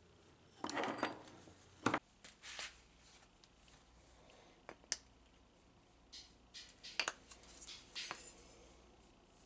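Small metal and plastic parts and tools being handled during hands-on repair work. A short scrape comes first, then a sharp click about two seconds in, followed by scattered lighter clicks, taps and brief scrapes.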